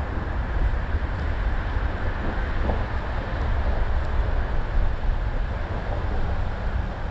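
Steady low rumble and hiss of wind buffeting the microphone.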